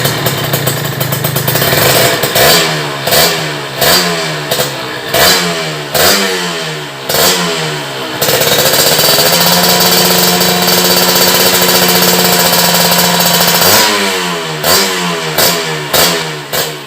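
Kawasaki KRR 150's single-cylinder two-stroke engine through an aftermarket RF Pipe exhaust, revved in a string of quick blips, then held steady at high revs for about five seconds. It is then blipped a few more times before dropping back.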